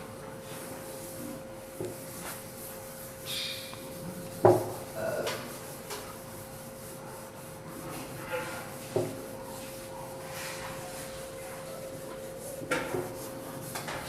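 Quiet room noise with a faint steady hum, broken by a few scattered knocks and some rubbing or scraping.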